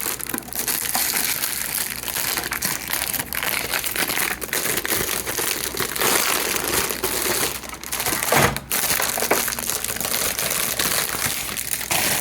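Packaging wrap around a docking station being crinkled and pulled off by hand: continuous rustling and crackling with scattered sharp crinkles.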